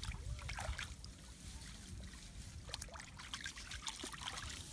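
Water splashing and trickling in short, irregular bursts, over a steady low rumble.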